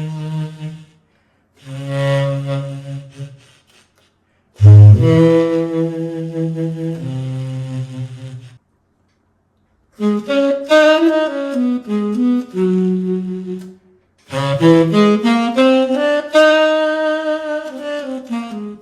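Sampled tenor saxophone from the VHorns virtual instrument, played from an EWI USB wind controller: a solo melody in five short phrases separated by brief silences, with a loud low note about five seconds in and a long held note with pitch bends near the end.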